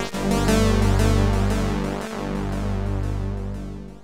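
Electronic synthesizer music from the 4k intro's own built-in software synth: sustained bass tones under a repeating pattern of short notes, fading down over the last second or two.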